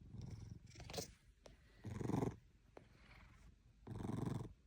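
A sleeping pet snoring: three rasping, fluttering breaths about two seconds apart, the second and third louder.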